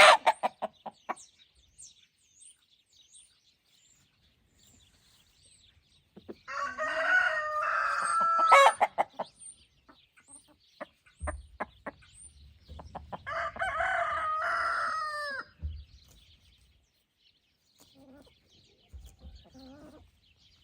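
Roosters crowing twice, each crow lasting about two and a half seconds, with hens clucking in between.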